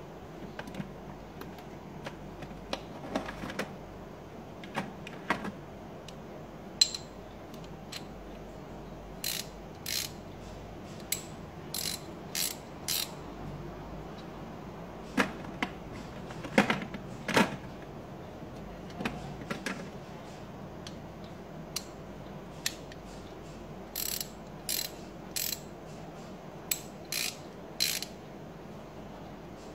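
Chrome sockets, an extension bar and a 3/8-inch drive ratchet from a Channellock socket set being handled, giving scattered sharp metal clicks and clinks, with short runs of ratchet pawl clicking in two groups, the later one near the end.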